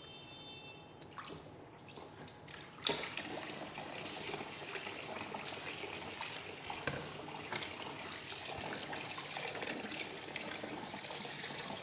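Kitchen tap running cold water into a steel bowl as hands rinse freshly boiled glass noodles under it to cool them; the water comes on about three seconds in, after a couple of light knocks, and runs steadily with splashing.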